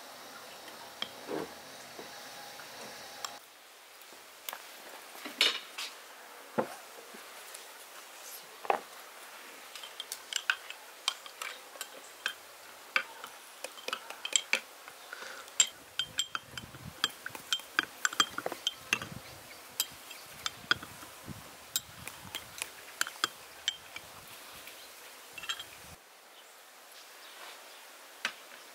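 A spoon clinking and tapping against glasses, cups and a glass mixing bowl while ingredients are spooned and stirred: a quick, irregular run of light clinks.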